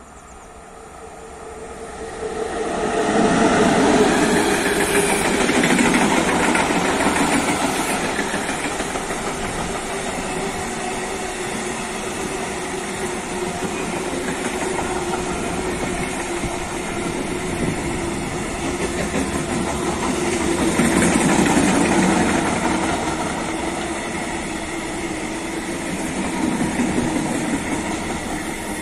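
Electric locomotive and a long container freight train approaching and passing close by: the sound swells about two seconds in, then the wagons' wheels keep up a steady rolling rumble on the rails, with a steady whine underneath and a louder swell again about two thirds of the way through.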